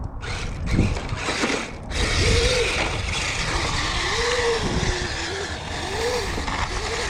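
Kyosho Blizzard RC snowcat driving on its tracks, powered by two Hobbywing 2435 brushless motors. The motor whine rises and falls again and again as the throttle is worked, with a steady gear and track clatter underneath.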